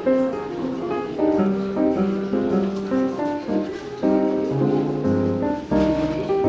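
Jazz piano background music with a moving melody over chords.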